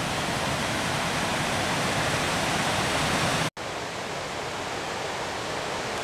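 Stream water rushing over rocks, a steady hiss that cuts out for an instant about three and a half seconds in and goes on a little quieter.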